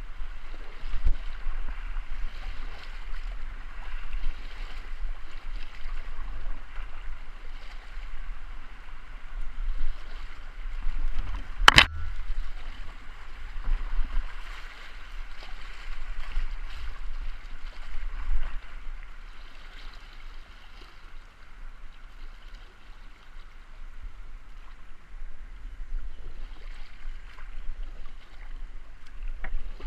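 River water rushing steadily around a kayak, with a low rumble underneath and one sharp knock about twelve seconds in.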